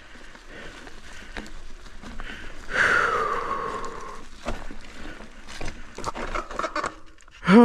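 Bike rolling down a rough, leaf-covered dirt trail with scattered rattles and knocks. About three seconds in, the brakes squeal for about a second and a half, falling in pitch. Right at the end the rider gives a loud sigh.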